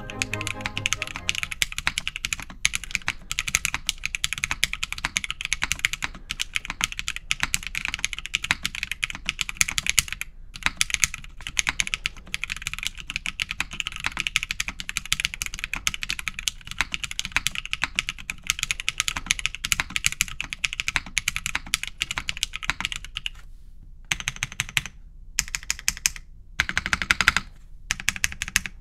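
Fast, continuous typing on a Mode Envoy mechanical keyboard with factory-lubed BSUN Agarwood linear switches, an aluminium plate and GMK cherry-profile keycaps. Near the end the keystrokes thin out to slower, separate presses with a short quick run.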